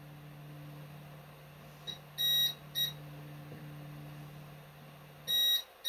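Geeetech Alkaid resin 3D printer homing its print head: the Z-axis stepper motor hums steadily while the head travels, and the printer beeps, one long and one short beep about two seconds in, then another pair near the end, just as the motor hum stops when the head reaches home.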